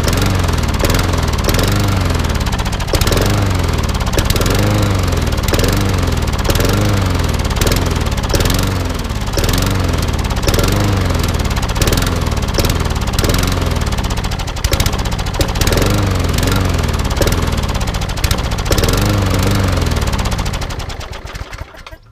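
Briggs & Stratton engine on a Mac Allister rotary lawn mower running unevenly, its speed rising and falling about once a second, then running down and stopping near the end. It is pouring out oil smoke and won't run right, with its carburettor and air filter flooded with oil, which the mechanic puts down to the mower having been tipped on its side.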